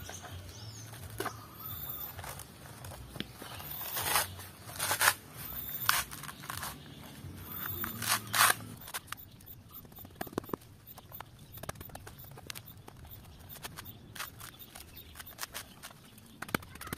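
Fibrous coconut husk being torn off the nut by hand, ripping in several short, loud bursts in the first half, then lighter crackling of the fibres.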